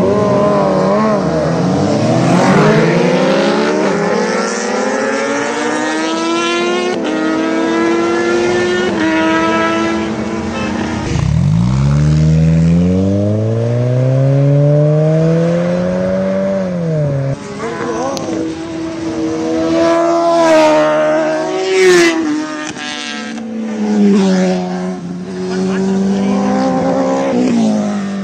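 High-performance engines of superbikes and sports cars revving and accelerating hard through the gears, the pitch climbing in repeated rising sweeps and dropping back at each gear change. About halfway through, one deeper engine pulls up in a single long rise for several seconds, then falls away.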